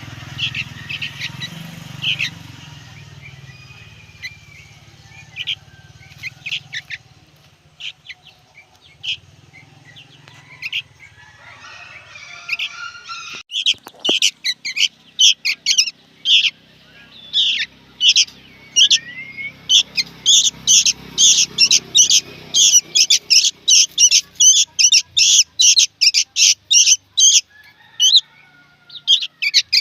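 Young sooty-headed bulbul calling: scattered short high chirps, then from about halfway a rapid, insistent run of repeated chirps, about three a second, with a short pause near the end.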